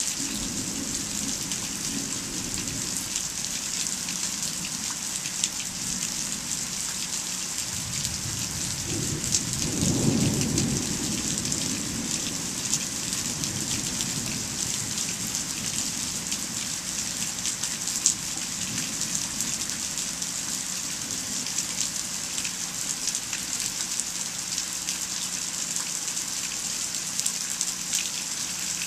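Steady rain falling in a mild thunderstorm. A low rumble of thunder builds and fades about eight to twelve seconds in, with a fainter rumble at the very start.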